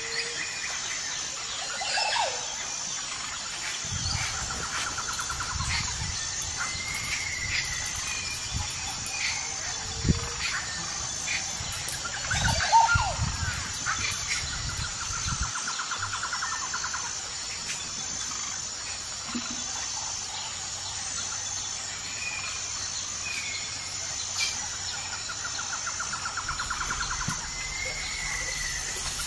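Birds chirping and trilling again and again over a steady, pulsing high insect buzz, with low rumbling and a few sharp knocks through the middle.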